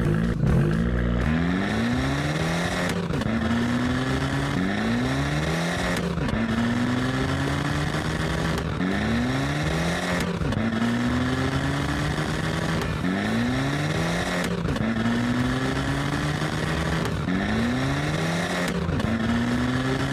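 Racing car engine sound effect, revving up in pitch again and again, about once every second and a half, like repeated gear changes at full speed.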